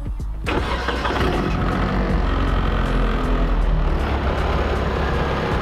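Nissan 240SX S14 drift car's engine running, heard from inside the cabin; it starts abruptly about half a second in and then runs steadily and loudly.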